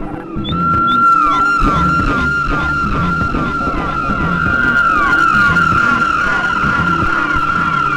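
Electronic music played live on table-top gear: a held high tone comes in about half a second in, with short falling sweeps repeating several times a second over a regular low pulse.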